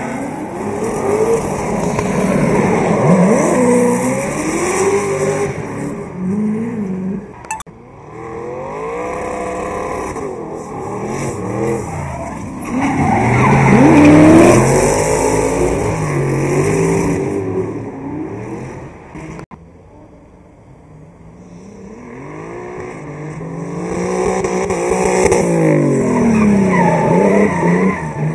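Drift cars' engines revving up and down in repeated sweeps as they slide around the track, with tyre squeal. The sound fades about two-thirds of the way through, then builds again as another car comes closer.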